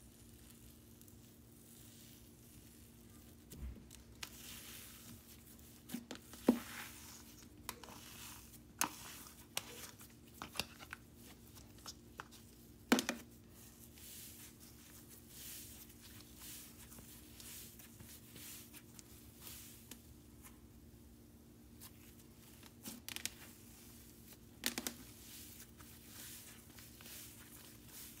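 Thick icy-texture slime being stretched and pressed by hand, making crinkly, tearing crackles with scattered sharp pops, over a faint steady hum.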